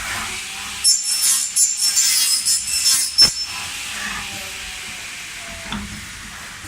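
Haffner PVC window welding and corner-cleaning machinery at work. For about two seconds there is high-pitched cutting with a steady whine, ending in a sharp clack about three seconds in. After that, quieter machine running.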